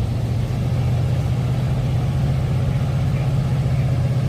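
Steady low rumble of outdoor background noise: water cascading down the aeration station's waterfalls, mixed with passing road traffic and trains.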